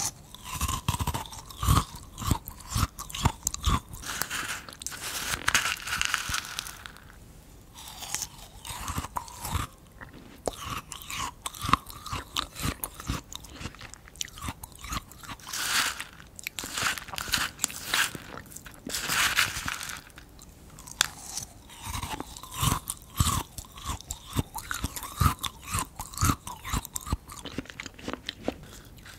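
Close-miked crunching and chewing of frozen bead ice cream, eaten by the spoonful: bursts of sharp, crisp cracks with short pauses between mouthfuls.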